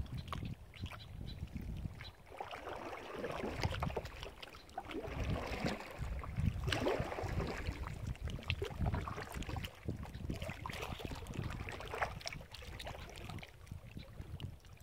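Water sloshing and lapping against a plastic kayak's hull as it moves slowly through shallow water, with wind buffeting the microphone.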